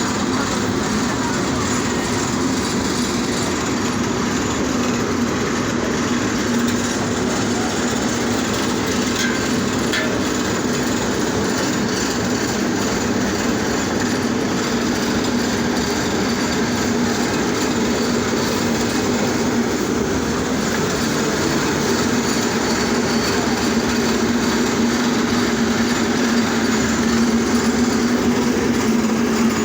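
Road-repair machinery running steadily: a loud, continuous mechanical noise with a constant low hum.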